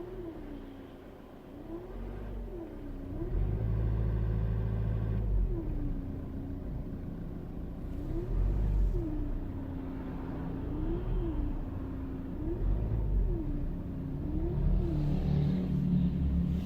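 Ford 1.8 TDCi diesel engine running, with a strange whine that rises and falls in pitch over and over, every second or two. A deeper engine rumble swells in about three seconds in and comes and goes after that.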